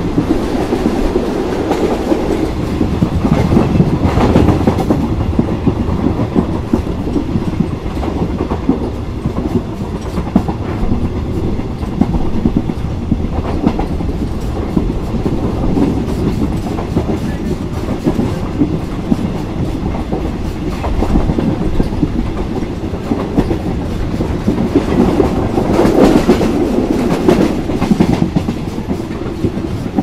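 Inside a passenger train car running at moderate speed: a steady rumble of wheels on the rails with clickety-clack over the rail joints. It swells louder about four seconds in and again near the end.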